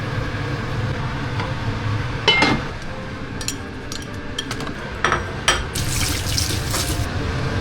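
Water running or being poured, loudest for a second or so near the end, over a steady low hum, with a few light clicks and knocks.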